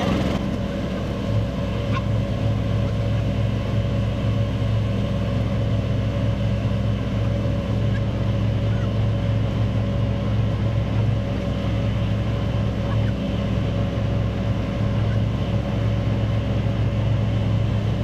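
A small engine running steadily at a constant speed, with an even hum.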